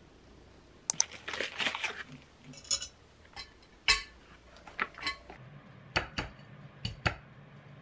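Kitchen handling sounds: a rustle and a run of sharp clicks and clinks of dishes and utensils, the loudest just before the middle. Near the end come four light knocks of boiled eggs against a ceramic plate.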